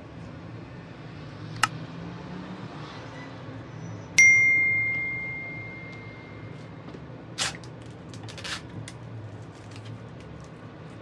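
A single bright bell ding about four seconds in that rings out on one clear tone and fades over a couple of seconds, the notification-bell effect that goes with a subscribe-button animation. A sharp click comes before it, and a few more short clicks follow, over a low steady hum.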